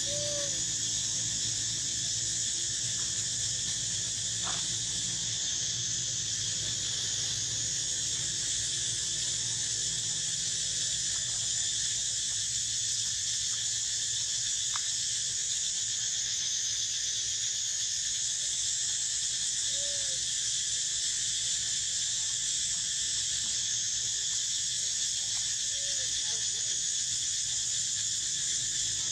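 Steady chorus of insects, a continuous high-pitched drone that does not change. A few faint, short squeaks come through near the start, about two-thirds in and near the end.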